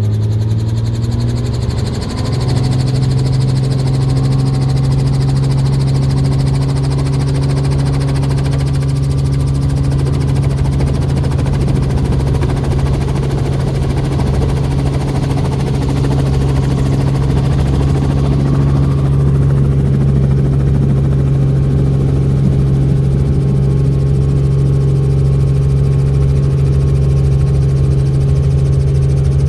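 Helicopter turbine and rotor running with a steady drone, stepping up in pitch about two seconds in and then holding steady.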